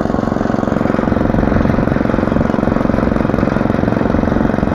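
Walk-behind motor hoe's small petrol engine running steadily under load while its hoe feet work the soil between crop rows.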